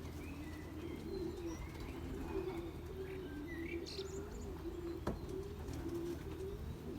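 Racing pigeons cooing steadily in a low, wavering murmur, with brief higher chirps now and then and a single sharp click about five seconds in.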